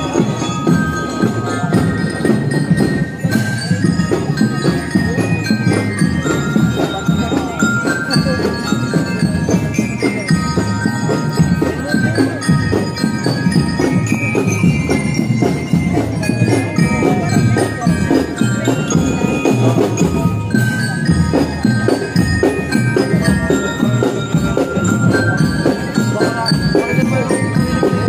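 A drum and lyre band playing a marching tune: bell lyres ring out the melody over drums.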